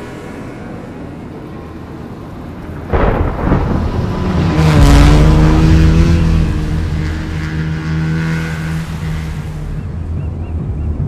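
An off-road side-by-side's engine revving hard, with a loud rushing boom that comes in suddenly about three seconds in. It is loudest a couple of seconds later and then slowly fades.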